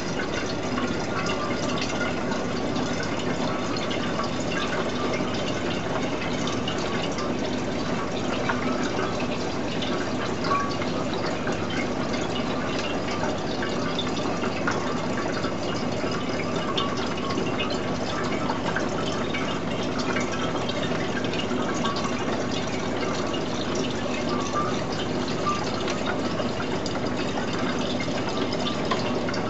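Salt water running in a thin, steady stream into a glass demijohn of phytoplankton culture, splashing and trickling as the jug fills.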